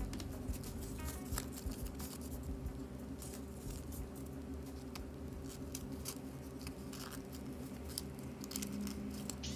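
Paper being folded and creased by hand: scattered soft crinkles and taps over a low steady hum.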